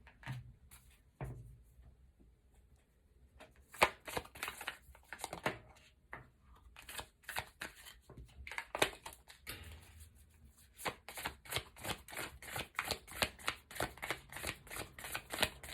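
A deck of tarot cards being shuffled by hand: short card clicks and slaps, scattered at first, then a quick, fairly even run over the last few seconds.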